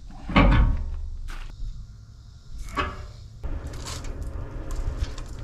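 A socket wrench working a transmission-line fitting on an aluminium radiator tank: two metallic knocks that ring briefly, about half a second in and near three seconds. Then a quieter stretch with faint scattered knocks.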